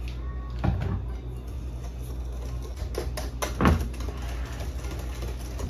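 Kitchen handling sounds over a steady low hum: a knock less than a second in and a louder one about two-thirds of the way through, as a small vanilla bottle is set down and a wire whisk is taken up in a glass bowl of egg-yolk and sugar mixture.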